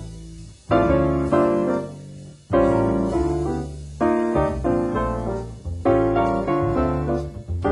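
Piano music: chords struck every second or two and left to fade, over low bass notes.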